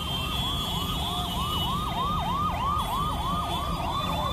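Emergency vehicle siren in a fast yelp, sweeping up and down about four times a second, over the steady rumble of road traffic.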